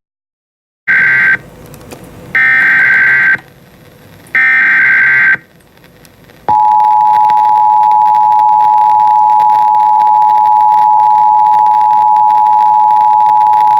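Emergency Alert System data and alert tones: three bursts of SAME header data, each about a second long, then the steady two-tone attention signal, which starts about six and a half seconds in and holds. Together they mark the start of a new alert message.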